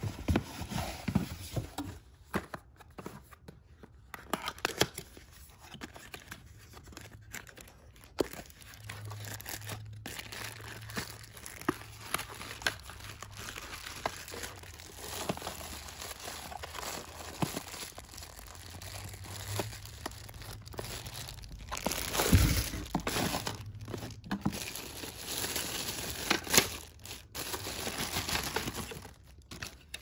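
Cardboard box and paper packaging being handled and opened by hand: continuous rustling, crinkling and tearing with scattered small knocks, loudest about three-quarters of the way through.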